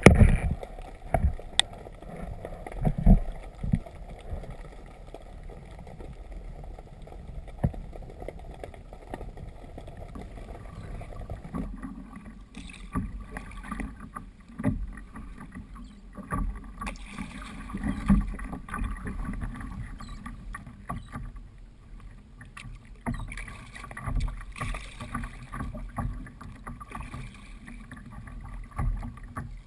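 Kayak being paddled: irregular paddle splashes and low knocks of water against the hull over a steady low wash of water, picked up by a GoPro riding on the kayak.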